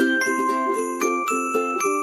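Cheerful background music: a bell-like melody stepping from note to note over a bouncing chord pattern, with jingling strikes on a steady beat.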